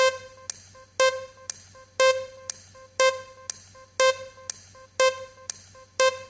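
Game-show style countdown clock sound effect: a sharp, ringing tick once a second, with a softer tick halfway between each pair, seven loud ticks in all.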